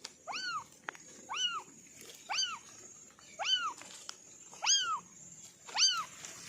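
A kitten meowing six times, about once a second, each a short high call that rises and falls in pitch.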